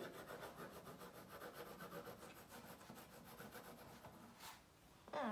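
Pencil shading on drawing paper on a wooden drawing board: a quick, even scratching of back-and-forth strokes that stops about four seconds in. A light tap and a short louder knock follow near the end.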